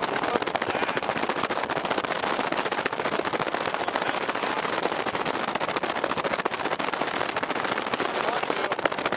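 Dense, steady crackling, like a rapid patter of many small impacts, with no pauses.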